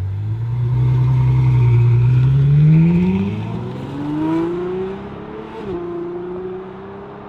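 Ferrari F12's V12, breathing through a titanium Valvetronic Designs exhaust, accelerating hard, heard from inside the cabin; its pitch climbs steadily and breaks at quick upshifts about three seconds in and again near six seconds.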